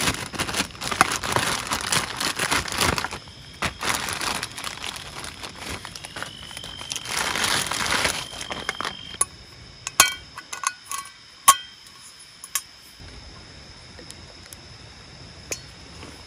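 Crinkling and rustling handling noise for several seconds, then a scattering of sharp clicks and clinks. After the clicks it goes quieter, with a steady high-pitched tone running underneath.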